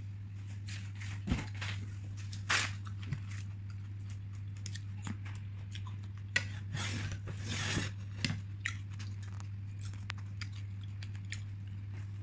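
Scattered light clinks and rustles of tableware and food being handled: a serving spoon on a plate of steamed fish, then chopsticks. Under them runs a steady low hum.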